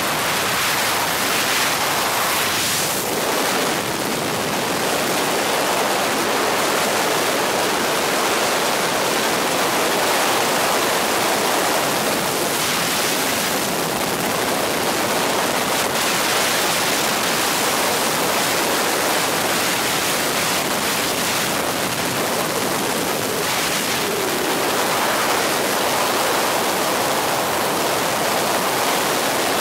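Steady rushing noise of a helicopter in flight, heard from the cabin: a constant wash of air and engine noise with no clear rotor beat.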